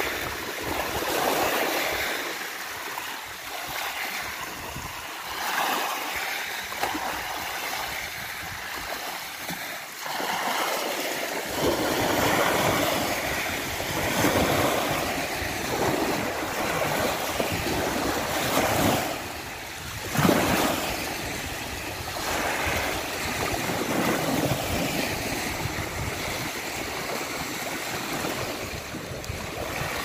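Small lake waves washing in over a beach of small pebbles, the wash swelling and fading every couple of seconds. From about a third of the way in, wind rumbles on the microphone under the waves.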